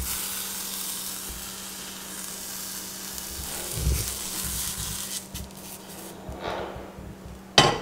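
Cheese frying in a hot nonstick frying pan, a steady sizzle that fades out about six seconds in. A single sharp knock comes near the end and is the loudest sound.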